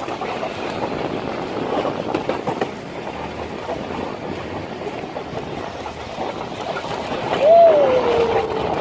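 Wicker basket toboggan sliding down a steep, wet asphalt street on its wooden runners: a steady scraping noise with scattered clatters. Near the end a voice calls out once in a long falling note.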